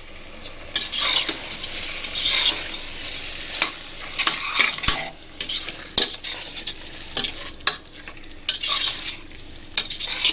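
Chicken pieces sizzling as they fry in masala in a pan, while a spatula stirs and scrapes through them in repeated strokes, with a couple of sharp knocks against the pan.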